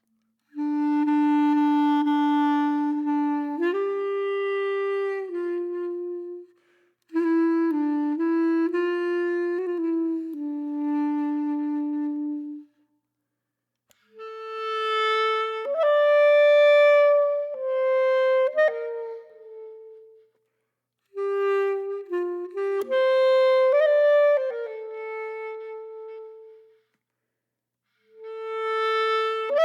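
Background music: a solo reed-like wind melody of long held notes in phrases, with short pauses between them.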